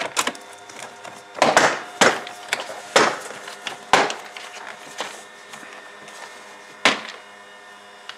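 Plastic trim clips on a Tesla Model 3's front frunk cover snapping loose as the cover is pulled off by hand: a string of sharp, irregularly spaced snaps and plastic knocks.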